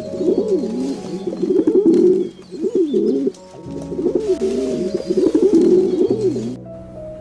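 Bird cooing in long warbling runs, with short breaks, over soft steady background music.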